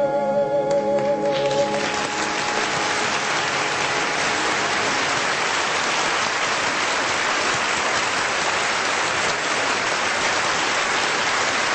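A woman singer's final note, held with a wavering vibrato over the orchestra, ends about two seconds in. Audience applause takes over and goes on steadily.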